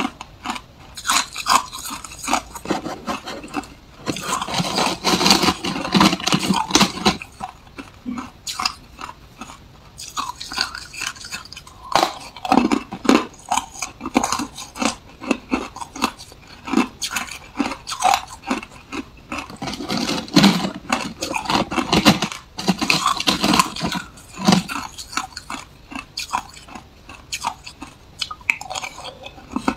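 Hard ice being bitten and crunched in the mouth, close up: rapid sharp cracks and crunches come in several clusters, with quieter chewing between them.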